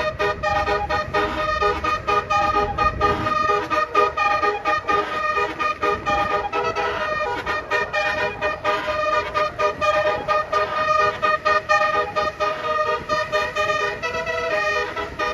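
Indonesian bus 'telolet' multi-trumpet horn playing a melody in quick, repeated stuttering 'dut dut' blasts. A low engine rumble sits under it for the first three seconds.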